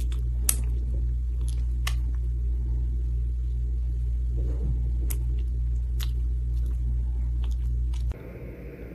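Kitten purring steadily as its chin is scratched, with scattered wet clicks from its mouth as it drools and smacks.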